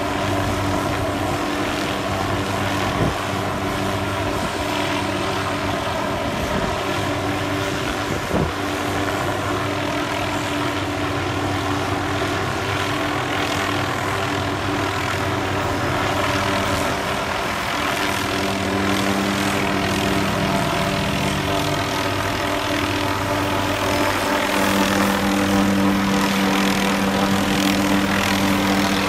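MD 500-type light helicopter hovering, its rotor and turbine running with a steady hum. There are two short knocks about three and eight seconds in, and a low hum grows louder near the end.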